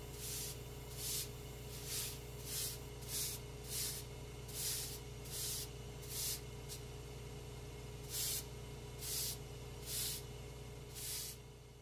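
Push broom sweeping a floor: a run of short bristle swishes, about one a second with a brief pause midway, over a steady low hum.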